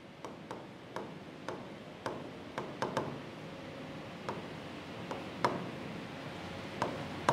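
Pen tip tapping and clicking against the glass of an interactive touchscreen board as a word is handwritten on it: light, irregular ticks, a dozen or so, over faint room noise.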